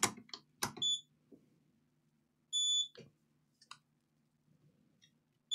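Multimeter continuity buzzer giving short high beeps: a brief one about a second in, a longer one around the middle, and another at the end. Between them come light clicks of the probe tips touching the laptop motherboard as the power-supply MOSFETs are checked for shorts.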